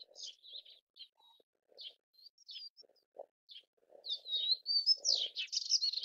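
Melodious warbler singing: scattered short chirps and whistles, then about four seconds in a louder, fast, dense run of varied chattering notes.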